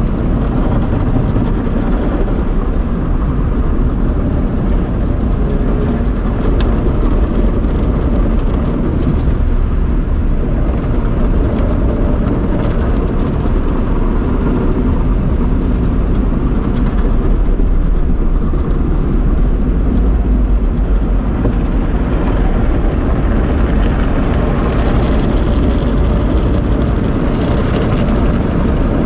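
Tunnel car wash machinery running: a loud, steady rumble and rush that carries on unbroken throughout.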